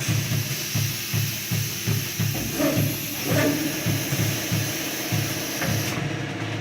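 Background music with a steady beat, over a steady hiss that cuts off suddenly about six seconds in.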